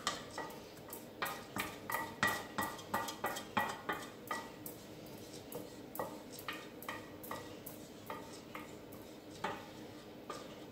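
Spatula scraping and knocking against a stainless-steel saucepan as thick cake batter is scraped out into a baking dish: a run of short metallic clinks, several a second in the first half, fewer and more spaced out later.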